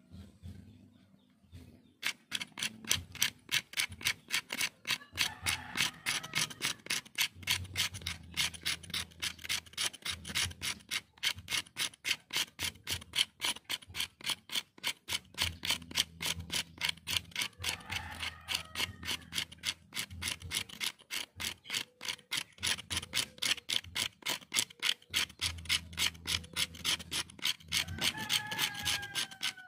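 A knife blade scraping a stick of resin-rich fatwood in quick, even strokes, about three or four a second, shaving it into fine tinder dust. The scraping starts about two seconds in.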